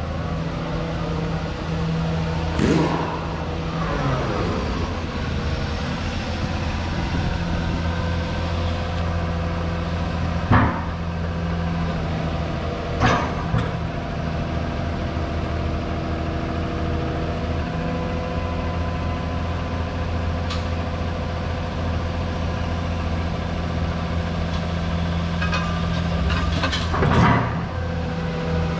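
Komatsu PC210LC-11 excavator's diesel engine running at a steady speed while the boom and arm are worked, with a few sharp knocks from the machine about three, eleven, thirteen and twenty-seven seconds in.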